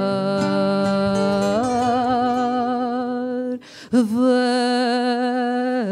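A woman singing fado, holding long notes with vibrato: one note steps up to a higher one, she takes a short breath about two-thirds through, then holds another long note on the word "cantar".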